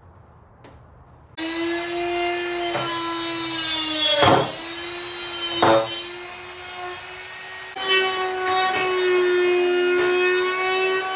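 A power tool cutting into a carbon-fibre hood: a steady high whine that starts suddenly about a second and a half in, with two brief louder bites into the material a few seconds later and the pitch stepping slightly higher later on.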